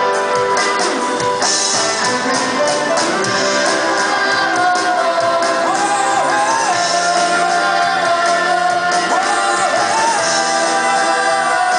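Live band playing a rock song, with a lead vocal melody over guitar, drums and bass.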